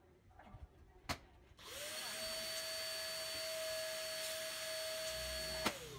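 Small electric balloon inflator: a click, then its motor spins up and runs with a steady whine and rush of air for about four seconds, filling a long balloon, and winds down as it is switched off with a click near the end.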